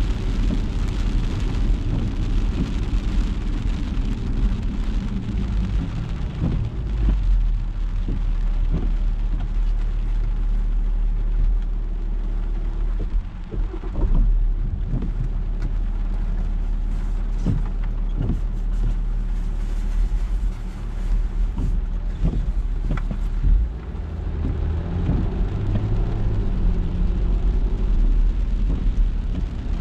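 Car driving on wet city streets in the rain: a steady low road-and-tyre rumble with the hiss of rain and wet road, and scattered short knocks.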